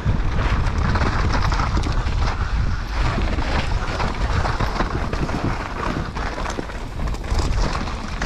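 Wind buffeting the microphone of a bike-mounted camera, with mountain-bike tyres crunching over a loose rocky dirt trail and the bike rattling and knocking over the bumps at speed.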